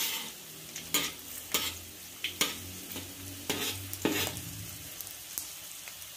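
Batter-coated shrimp deep-frying in hot oil in a wok: a steady sizzle with sharp crackles every half second to a second.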